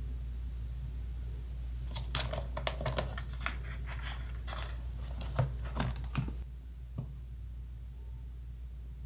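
Pages of a ring-binder diary being handled and turned by hand: a run of paper rustles and light clicks from about two to six seconds in. A steady low hum runs underneath and stops a little past six seconds in.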